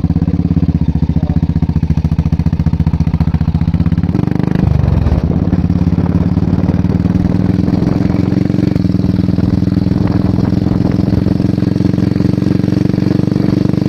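Royal Enfield motorcycle with a Barrel Exhaust aftermarket silencer, idling with a steady, even beat. About four seconds in the throttle is blipped once, then it settles back to idle.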